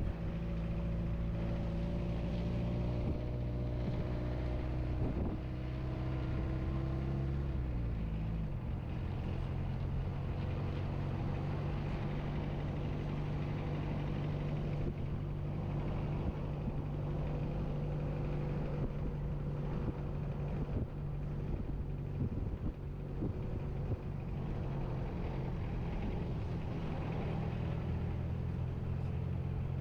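Vehicle engine running steadily. Its note drops about eight seconds in, then holds at a lower pitch.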